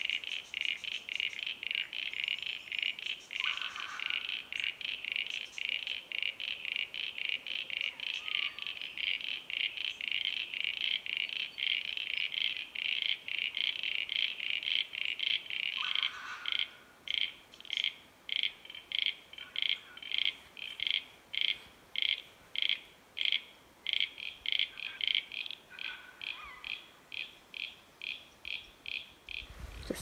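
Chorus of pond frogs calling: a dense run of short, rapidly repeated high-pitched calls, which thins a little past halfway into separate pulses about two to three a second, with a few fainter lower chirps mixed in.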